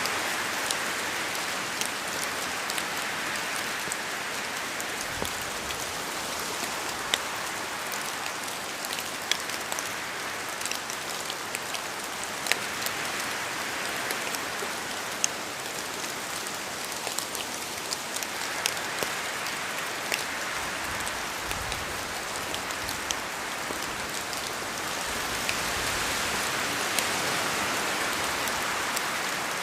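Steady rain falling in a forest, a dense hiss that swells a few times, with scattered sharper ticks of single drops falling from the trees.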